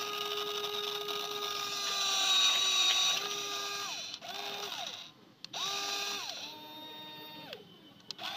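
Small electric motors of a toy remote-control excavator whirring in a series of runs as the boom and bucket are worked: one long run of about three seconds, then several shorter ones, each sliding down in pitch as it stops.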